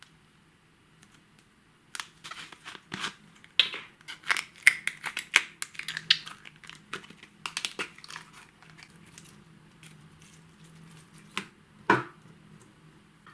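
White slime being squeezed and stretched by hand, giving a dense run of sticky crackles and pops that thins out, with two sharper pops near the end.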